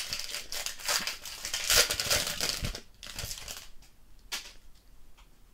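Foil wrapper of a Donruss football trading-card pack being torn open and crumpled: a dense crinkling, loudest about two seconds in, that dies down after about three seconds. A few light clicks follow as the cards are handled.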